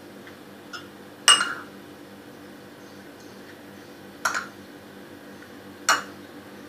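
A metal spoon clinking against a small glass bowl of spice filling: three sharp, ringing clinks a second or two apart, with a fainter one just before them, over a low steady hum.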